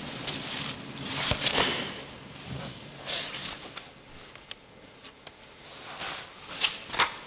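Paper rustling as the pages of a large altar missal are handled and turned, in several short bursts with a couple of light taps near the end. The last of an organ chord fades out in the first second.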